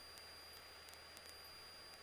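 Near silence: faint hiss with a steady high-pitched whine and a faint low hum.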